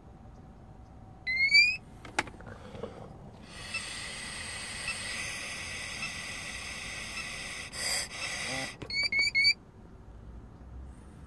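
Intoxalock ignition interlock handset: a short rising electronic chirp and a click, then a breath sample blown steadily into the mouthpiece for about four seconds with a steady tone over it, ending in three quick rising chirps.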